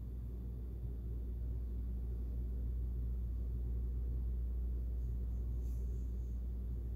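Steady low hum of room background noise, with a faint brief tick about six seconds in.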